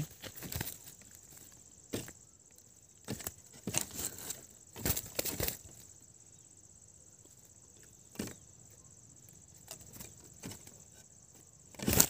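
Irregular light knocks and rustles against the wooden sticks of a bird trap, a dozen or so scattered through, thickest about five seconds in, under a faint steady high-pitched drone.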